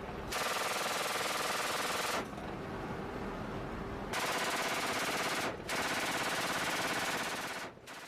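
Machine gun firing three long sustained bursts, with short pauses between them.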